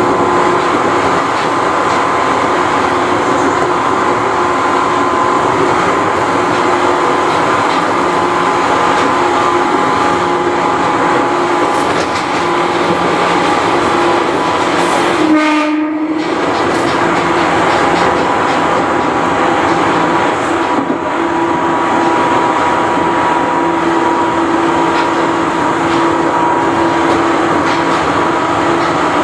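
Seibu New 101 series electric train running at speed, heard in the cab of its motor car: the traction motors give a loud, steady whine over the noise of the wheels on the rails.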